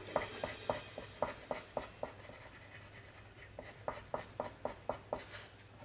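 Zenacolor 2 coloured pencil scratching on paper in quick short flick strokes, about four a second, in two runs with a pause of about a second and a half between them.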